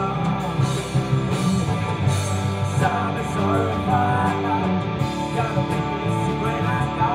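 Live rock band playing: distorted electric guitars, bass guitar and a drum kit, with a male lead singer singing over them.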